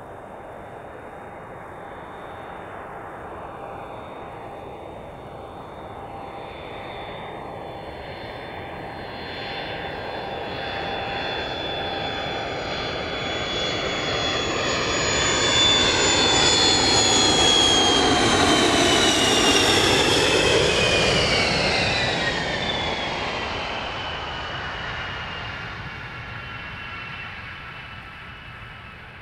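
Yakovlev Yak-40's three Ivchenko AI-25 turbofans on landing approach: a high whine that grows louder as the jet nears, falls in pitch as it passes about two-thirds of the way through, then fades.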